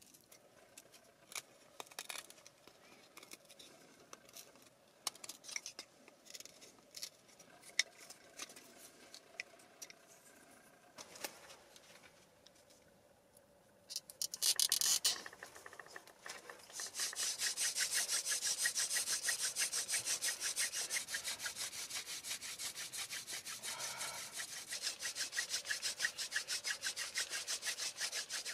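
Knife whittling wood, quiet scattered scrapes and clicks, for about the first half. Then a wooden spindle drilled fast into a wooden fireboard for a friction fire: a loud, fast, steady rubbing as the friction builds an ember.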